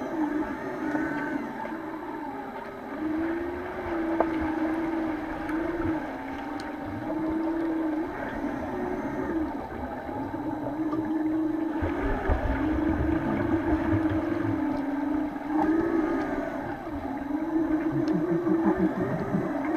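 Underwater pool sound picked up by a submerged camera: a constant wavering hum that drifts up and down in pitch, with scattered clicks and knocks. A surge of low rumbling water noise comes about twelve seconds in, and a short run of low rising swishes near the end.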